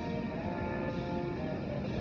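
Music with held notes, over a steady low rumble.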